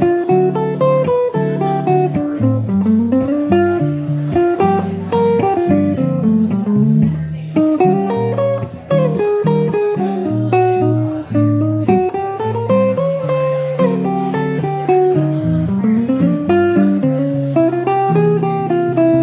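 Hollow-body archtop electric guitar played fingerstyle, with a plucked melody that climbs and falls over a stepping bass line.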